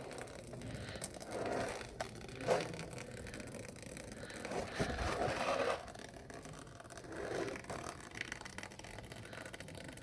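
Irregular light scrapes and clicks, with a few short scraping spells, the longest about five seconds in.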